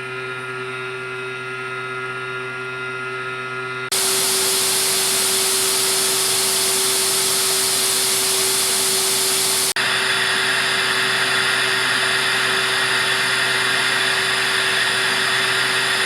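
CNC machine tool running in a factory: a steady hum with several held tones, then about four seconds in an abrupt switch to a loud hiss-like machining noise, which changes abruptly again about ten seconds in to a higher, hissing noise.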